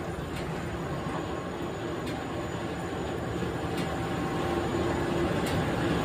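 Sawmill head-rig machinery running: a steady rumble and hum that grows louder through the second half.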